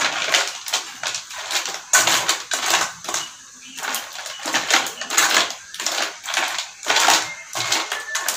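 A utensil scraping and knocking against a cooking pot as food and seasoning are stirred, in quick irregular strokes.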